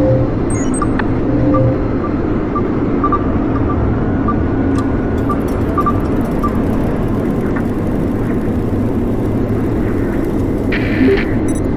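Sound-designed spaceship-interior ambience: a steady low engine hum with a string of short electronic beeps in the middle, and a brief bright electronic burst near the end.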